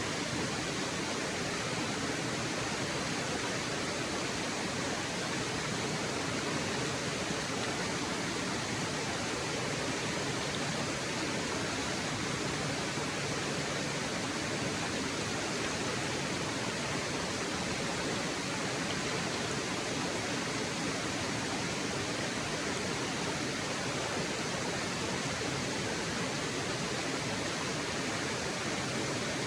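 Waterfall: water falling in a steady, even rush of white noise with no breaks.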